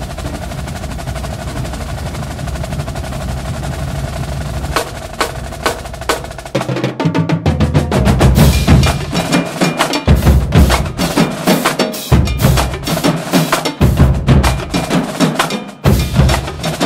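Percussion-heavy soundtrack music: a steady, rapid drum-roll texture that gives way about seven seconds in to heavy, regular drum beats with deep bass.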